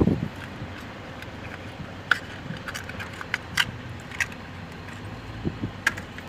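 A short muffled bump at the start, then a handful of light, irregular metallic clicks and clinks from spark plugs and hand tools being handled over a stopped car engine, with no engine running.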